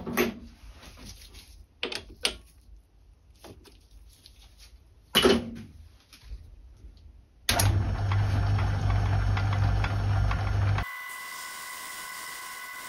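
A few sharp clicks and knocks of hand work on the lathe. About seven and a half seconds in, the Myford ML7 lathe switches on and runs with a steady hum. About three seconds later that cuts abruptly to a quieter, steady whine of several high tones.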